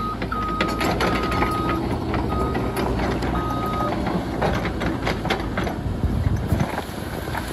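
CAT 311F excavator's diesel engine running under load while its grapple saw head pushes into brush, with branches snapping and crackling, most of all in the second half. An intermittent high-pitched beep sounds on and off through the first half.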